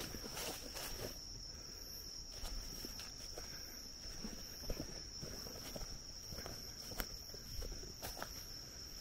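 Night insects, crickets or similar, singing a continuous high steady trill, with irregular footsteps and rustling on the forest floor and a few sharp clicks.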